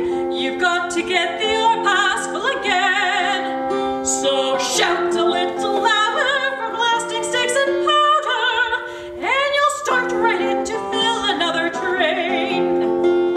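A singer's voice with vibrato over steady, held chords from an accompanying instrument.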